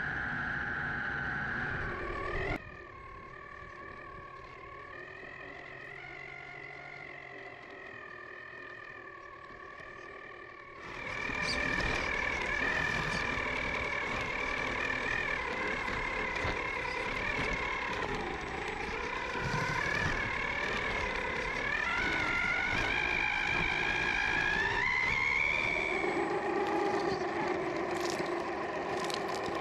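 Vanquish VS4-10 Phoenix RC rock crawler's Hobbywing XeRun Axe 540 brushless motor and geared drivetrain whining, the pitch rising and falling with the throttle as it crawls. It is quieter from about two and a half seconds in until about eleven seconds, then louder again, with a few sharp clicks near the end.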